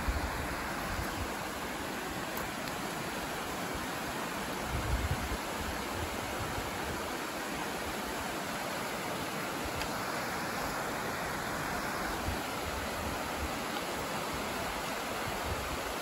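Steady rush of a shallow mountain stream running over a rocky bed, with brief low wind buffeting on the microphone about five seconds in.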